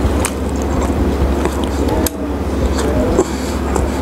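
A man chewing pieces of fried chicken close to the microphone, with small scattered mouth clicks over a steady low hum.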